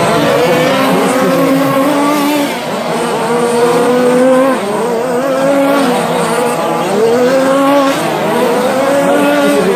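Several radio-controlled short course trucks racing together, their motors making overlapping tones that rise and fall as they accelerate and slow through the corners.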